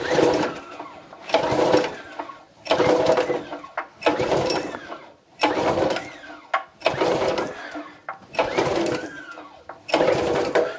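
Honda GX160 four-stroke engine being pull-started by its recoil starter: about eight pulls in a row, one every second and a half, each a short cranking whirr, and the engine never fires. It has sat unused for ten years, and the owner suspects stale fuel gumming up the carburettor.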